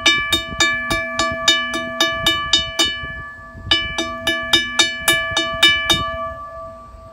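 Railroad crossing bell gong struck over and over with a rock held in the hand, about three to four strikes a second, each strike ringing the same set of bright metallic tones. The striking pauses briefly about three seconds in, stops about six seconds in, and the ringing dies away.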